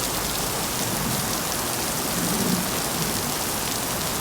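Heavy rain pouring down steadily, with a faint low hum underneath.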